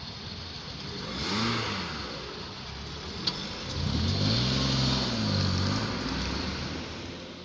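Cars driving off over a railway level crossing as the barriers rise. One car's engine rises and then falls in pitch as it accelerates past, about four seconds in, with a short click a little after three seconds.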